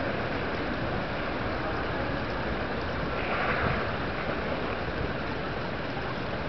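Steady rushing noise of wind and moving water, with a brief louder hiss about halfway through.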